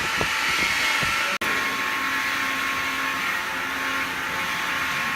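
Industrial shop machinery running steadily: a constant hiss with a few steady whining tones and a low hum, with a few dull knocks in the first second and a sudden brief drop-out about a second and a half in.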